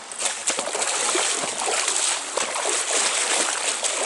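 Water splashing and sloshing in a shallow trout stream, with many quick irregular splashes over the steady rush of the stream.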